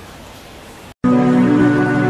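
Background music cuts in suddenly about halfway through, with held chords over a low pulsing bass. Before it there is only a faint steady hiss, then a split second of silence.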